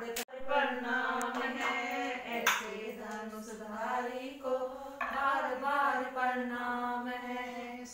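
Women's voices singing a song in long, steadily held notes, with a sharp click near the start and another about two and a half seconds in.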